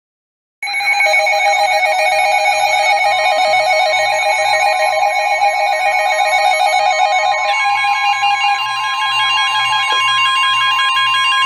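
Emergency alert tones from several receivers sounding together: warbling alarm tones and a pulsing low beep, joined about three seconds in by a long steady tone, all cutting off together at the end.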